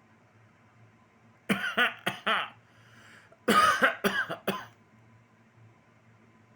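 Pet parrot mimicking a human cough: two bouts of several coughs, the first about a second and a half in and the second about two seconds later.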